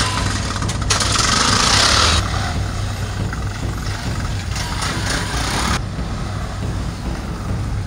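Three-wheeler auto-rickshaw's small engine running as it drives along, briefly louder about a second in.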